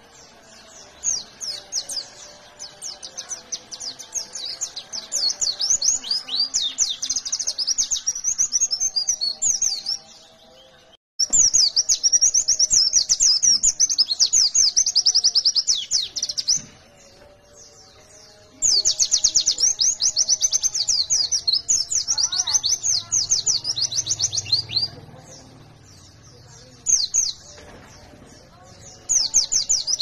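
White-eye (pleci, Zosterops) singing: long, fast runs of high twittering chatter in several bouts with short quiet gaps between them. This is the rapid-fire song keepers call "nembak". There is a sudden break about ten seconds in.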